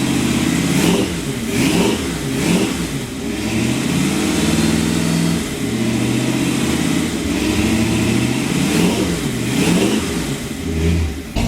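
1966 Chevrolet pickup's engine running and being revved in repeated throttle blips, its pitch rising and falling several times. The engine is still cold and doesn't idle well.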